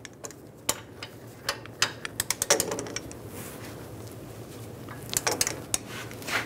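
Ratcheting torque wrench clicking as it tightens a brake caliper bracket bolt to 130 ft-lb, in quick runs of sharp pawl clicks about two seconds in and again about five seconds in.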